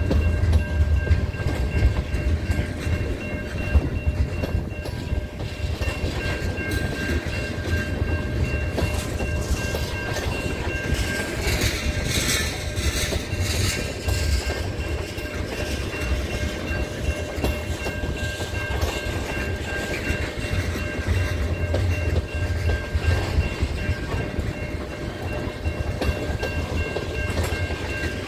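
Freight train of tank cars rolling past, steel wheels clacking over the rail joints over a continuous low rumble. A thin steady high tone rings throughout.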